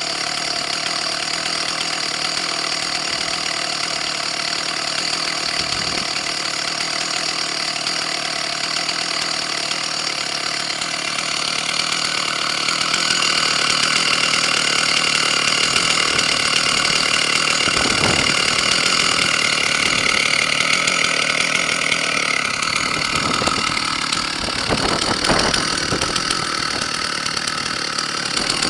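Stihl 064 two-stroke chainsaw idling steadily, a little louder through the middle stretch.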